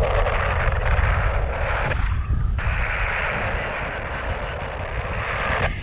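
Wind rushing over the microphone in paraglider flight: a heavy low buffeting with a steady hiss above it that cuts out briefly about two seconds in and again near the end.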